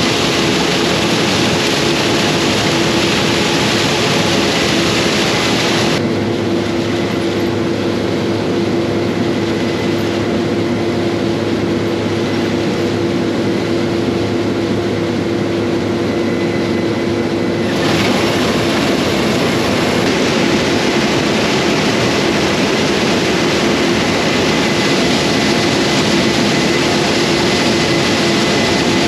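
Combine harvester running steadily while harvesting corn: a constant machine drone with a steady hum over a wide hiss. About six seconds in the high hiss drops away and a lower hum comes up, until the hiss returns about eighteen seconds in.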